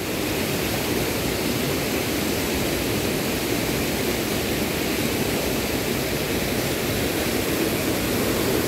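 Steady, unbroken rushing noise of water.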